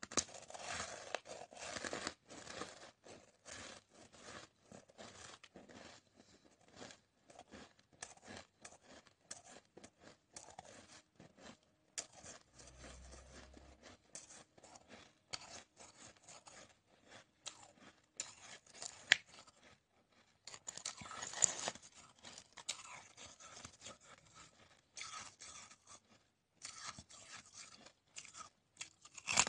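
Hard, crunchy chunks of coloured ice being bitten and chewed: a run of irregular crunches and crackles, densest about a second in and again about two-thirds of the way through, with brief pauses between bites.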